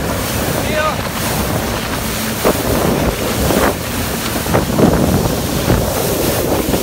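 Motorboat running at speed: wind buffets the microphone and water rushes past the hull, with a few sharp knocks in the middle of the stretch.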